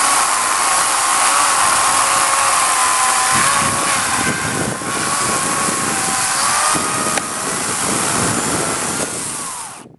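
Corded Dolmar electric chainsaw running at full speed and cutting into a beech trunk: a steady motor whine that dips slightly in pitch under load over the hiss of the chain in the wood. It cuts off near the end.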